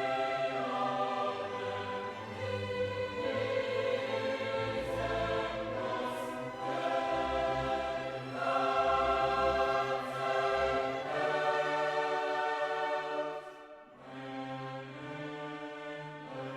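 Background music: choral and orchestral music with sustained sung chords that change every second or two, dropping quieter near the end.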